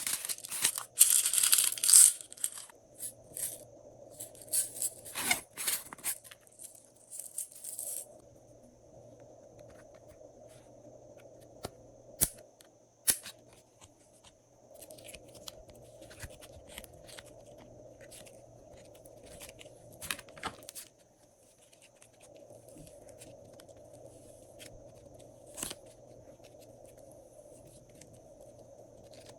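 Slime being worked by hand with items mixed in: dense crackling and crinkling for the first two seconds, then bursts until about eight seconds in. After that, sparse sharp clicks and pops over a faint steady hum.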